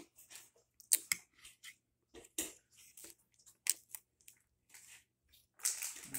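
Close-up eating sounds of Oreo ice cream cake: chewing and mouth noises, with scattered short clicks and scrapes from a spoon, and a longer scraping, crunching stretch near the end as a piece of the cake is bitten.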